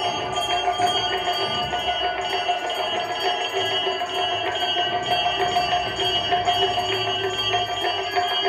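Continuous bell-like ringing with several held tones and quick, light jingling.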